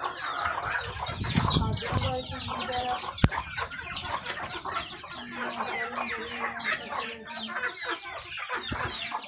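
A flock of Indian country chickens (nati koli) clucking and calling, with many short calls overlapping throughout. There is a single sharp click about three seconds in.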